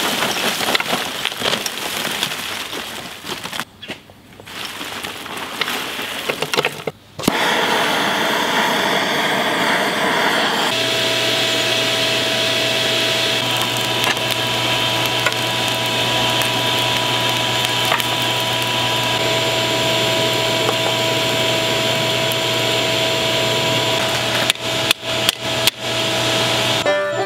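Charcoal pouring from a bag into a steel forge pan, a steady rustling noise. From about eleven seconds in, a forge's electric air blower runs steadily with a hum and fixed whine while the fire burns. Near the end come a handful of hammer blows on hot steel on an anvil.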